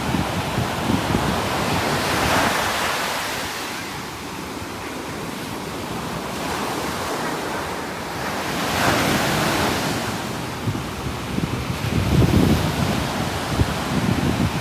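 Ocean waves breaking and washing ashore, rising and falling in slow surges every several seconds, with a low gusty rumble of wind on the microphone near the start and again about twelve seconds in.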